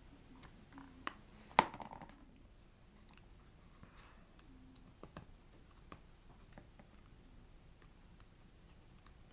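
Small clicks and taps from handling a piece of card and a pen at a workbench, with one sharp click about a second and a half in and a few fainter ticks later.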